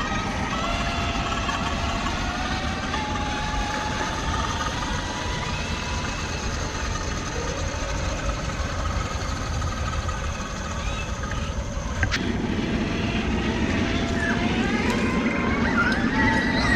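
Whine of a scale RC crawler truck's electric motor and gearbox, its pitch rising and falling slowly with the throttle over a steady low rumble. One sharp knock about twelve seconds in.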